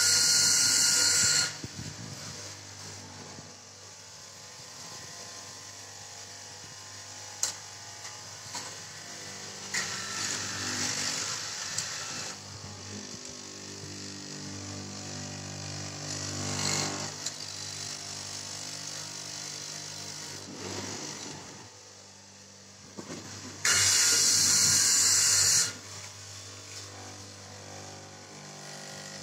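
LIPU straight-knife fabric cutting machine running as its vertical blade cuts through a stack of T-shirt cloth, with a steady motor hum. Twice, near the start and about three quarters of the way through, a loud hiss of about two seconds rises over it, and a fainter one about a third of the way in.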